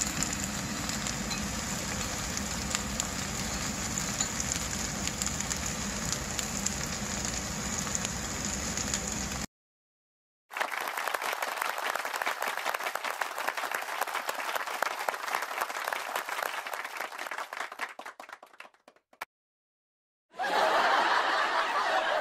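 Korean chive pancake (buchujeon) batter frying in a pan of oil, sizzling steadily with fine crackling. The sizzle cuts off about nine seconds in, comes back a second later and fades out around eighteen seconds; a brief louder sound follows near the end.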